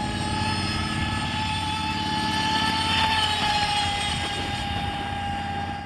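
Remote-control boat motor running with a steady high whine over a low rumble.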